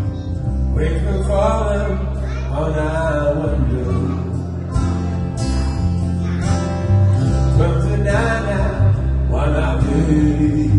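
Song with acoustic guitar and a steady bass line, and a male voice singing a few short phrases.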